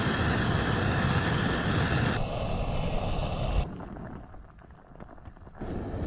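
Canister gas camping stove burning at full flame under a titanium pot, a steady hiss. It drops away suddenly with a brief knock about three and a half seconds in and comes back just before the end.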